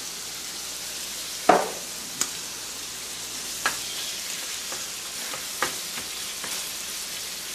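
Chicken sizzling steadily in a frying pan while it is stirred with a spatula, with a few sharp knocks of the spatula against the pan, the loudest about a second and a half in.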